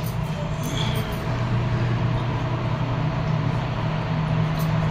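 Steady low engine hum, slowly growing louder, with a few faint scratches of tailor's chalk on cloth.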